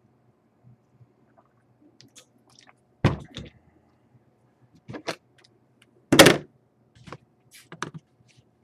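Short knocks and thumps of objects being handled on a tabletop close to the microphone, about five of them, the loudest and longest about two-thirds of the way through.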